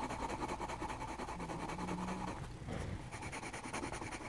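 Grey coloured pencil shading on drawing-pad paper: a steady scratchy rubbing made of many quick, short strokes.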